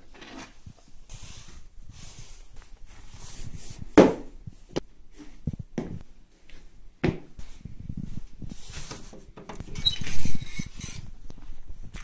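Footsteps and handling noise of someone walking through a house while carrying the camera, with irregular clicks and rustles and sharp knocks about four and seven seconds in.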